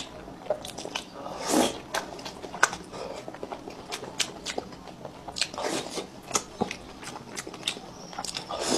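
Close-miked eating of soft fish in sauce: wet chewing with many sharp lip smacks and mouth clicks, and three short slurps, about a second and a half in, near the middle and at the end.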